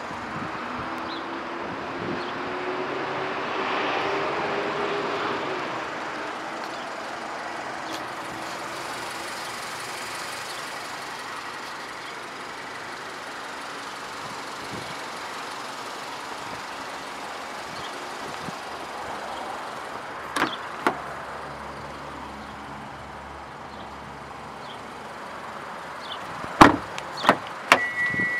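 Steady outdoor traffic and wind noise, with a vehicle engine rising slightly in pitch over the first few seconds. Near the end, a few sharp clicks, the loudest sounds here, as the Kia Rondo's driver's door handle and latch are worked and the door is opened.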